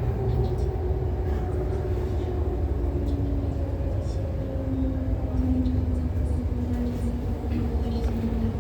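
MTR Tuen Ma Line C-Train running over the track with a low rumble, its traction motors whining in a tone that slowly falls in pitch as the train slows.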